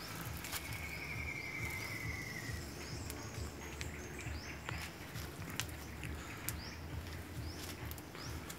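Forest ambience of insects and birds. A high, rapid trill lasts about two seconds near the start, short rising bird chirps repeat throughout, and there are scattered clicks and rustles of branches.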